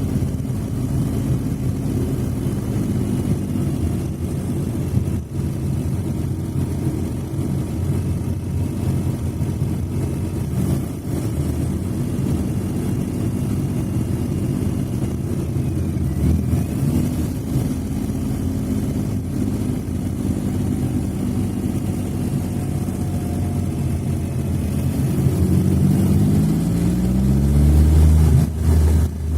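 Smart fortwo (451) engine running steadily, with the revs climbing near the end.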